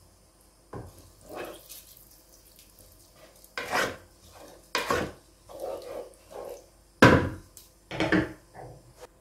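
Wooden spatula stirring rice and spinach in a pot of liquid: a series of separate scraping strokes and knocks against the pot, with two sharper knocks near the end.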